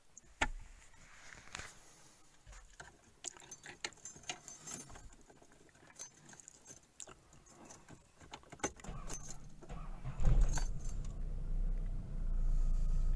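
Keys jangling on the ignition key ring in a run of light clicks and rattles, then about nine seconds in the 1997 Toyota Celica ST204 SX's 2.2-litre four-cylinder engine starts and settles into a steady low idle.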